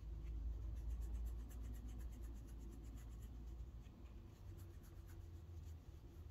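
Fingers scratching a cat's ear and fur right by the microphone: a quick, scratchy rustling, strongest in the first half, over a low steady rumble.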